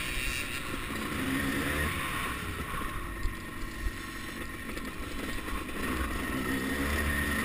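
1989 Suzuki RM250 two-stroke single-cylinder motocross engine running under way, its pitch rising and falling with the throttle, with wind noise. It eases off a little about halfway through, then picks up again near the end.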